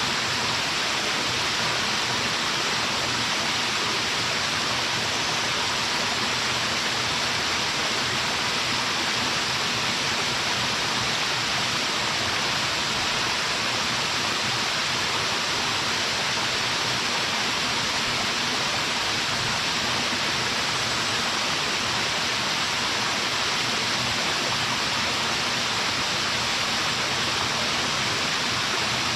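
Waterfall: a steady, even rush of falling water, strongest in the upper middle range.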